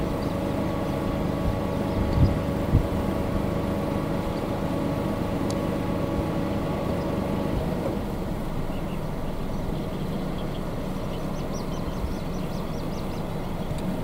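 A steady engine hum holding several even pitches over a low outdoor rumble, ending about eight seconds in. Faint high bird peeps come near the end.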